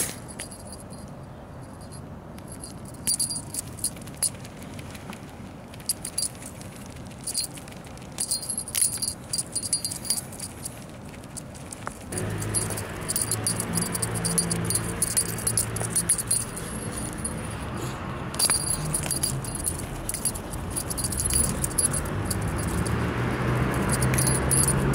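Small bell on a feather cat-teaser toy jingling in short, irregular shakes as a cat bats at and bites the toy. About halfway through, a low steady hum comes in underneath and gets louder.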